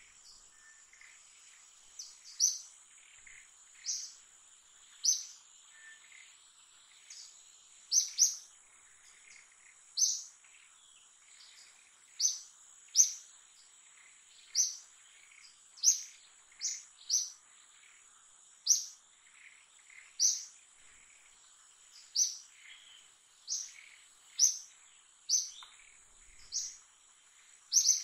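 A bird gives short, sharp, high chirps, roughly one a second and somewhat irregular, starting about two seconds in. Under them runs a steady, high-pitched insect drone.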